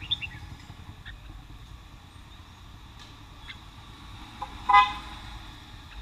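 A few short chirps from caged red-whiskered bulbuls, then a loud, brief vehicle horn toot late on, over low street rumble.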